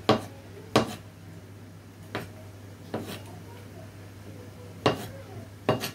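A kitchen knife chopping canned button mushrooms on a plastic cutting board: six sharp knocks of the blade hitting the board, irregularly spaced, over a steady low hum.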